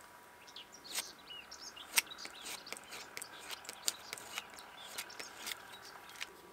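Small birds chirping, with a scatter of sharp clicks and taps; the loudest click comes about two seconds in.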